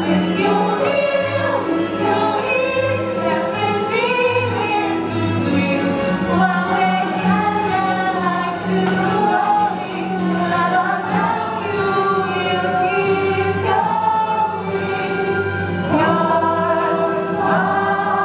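Large cast of young performers singing together in chorus over musical accompaniment, a lively show tune from a stage musical.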